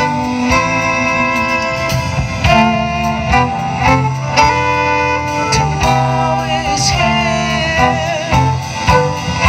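Live jazz band playing a song, with violin, horns, guitar and drums, and a woman singing.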